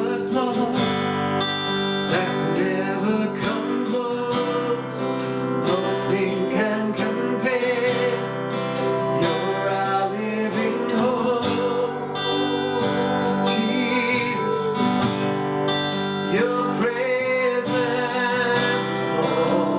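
Worship music led by strummed acoustic guitar, playing steadily.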